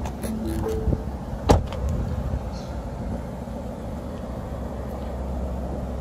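A Lincoln MKZ sedan's door is shut once, a single sharp thud about a second and a half in, over a steady low rumble.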